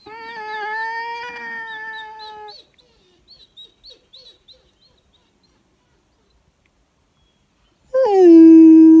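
Howling: one long, steady howl for the first two and a half seconds, then a few faint high chirps, then a much louder howl about eight seconds in that starts high and falls in pitch.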